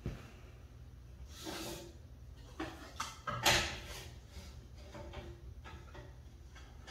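A few short scrapes and knocks from hands working a board and the metal outfeed table of a DeWalt benchtop thickness planer that is not running, the loudest about three and a half seconds in, over a faint steady low hum.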